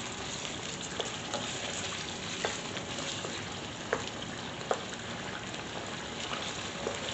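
Chicken pieces frying in plenty of hot oil in a karahi, being browned golden: a steady sizzle with a few sharp ticks scattered through it.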